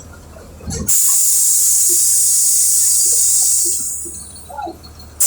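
Compressed air hissing loudly from a Volkswagen 17.230 bus's pneumatic air system, starting suddenly about a second in and fading out after about three seconds, over the low steady hum of the running engine.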